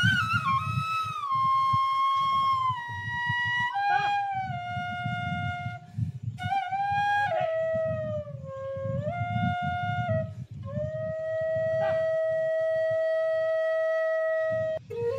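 Background music: a flute playing a slow melody of long held notes that slide up and down between pitches, over a low accompaniment. One note is held for about three seconds near the end.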